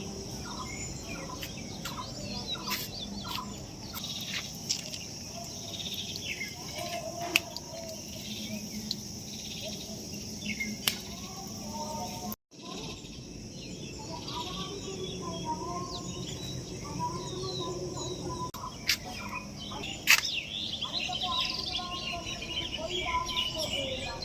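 Garden ambience of birds chirping over a steady high insect drone, with a few sharp clicks and a brief dropout about halfway through.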